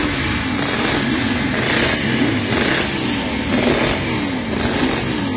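Vintage Suzuki racing motorcycle's engine being blipped on the throttle, its pitch rising and falling again and again.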